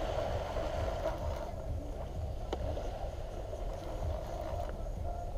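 Wind rumbling on the microphone over waves washing on the beach, steady throughout, with a single sharp click about two and a half seconds in.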